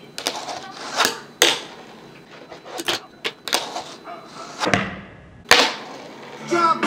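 Fingerboard tricks on a wooden table: sharp clacks of the small deck popping and landing on the wood, about eight or nine in all, with the rolling rattle of its tiny wheels between them. Hip hop music comes in near the end.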